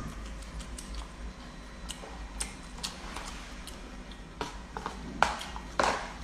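Eating sounds: a metal fork clicking and scraping in a plastic food container, with chewing, heard as about a dozen small irregular clicks.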